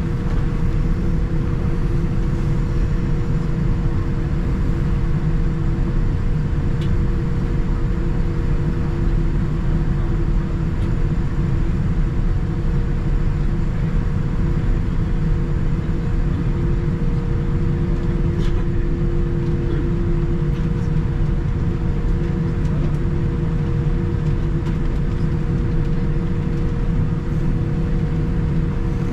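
Steady cabin noise inside a Boeing 787-9 airliner: a constant rumble from the jet engines and airflow, with two steady low hums over it.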